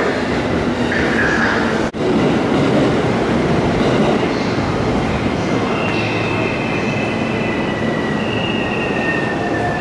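A train running at a station, a steady loud rumble, with a thin high squeal that slides slowly down in pitch through the second half, as from wheels or brakes.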